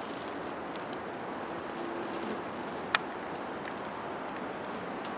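Steady hiss of outdoor background noise in a forest, with one sharp click about three seconds in.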